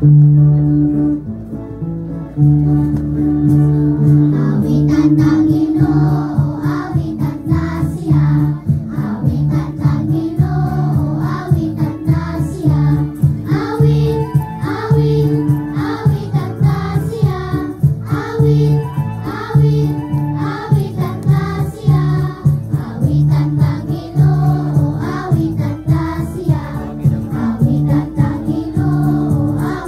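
Choir singing a hymn over a steady instrumental accompaniment with held low bass notes, cutting in abruptly and loudly.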